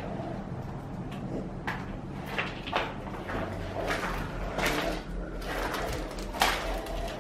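Irregular knocks, clicks and scuffs, about a dozen, the sharpest one near the end, over a steady low hum.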